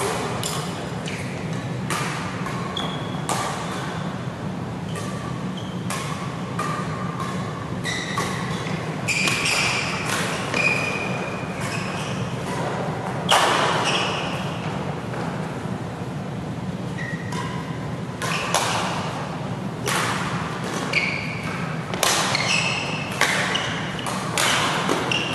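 Badminton rackets striking a shuttlecock again and again through doubles rallies, with the strongest hit about thirteen seconds in. Short squeaks from shoes on the court mat come between the hits, over a steady low hum.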